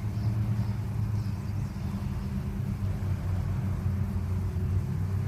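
Steady low rumble of a running motor vehicle, an even drone with no sudden events.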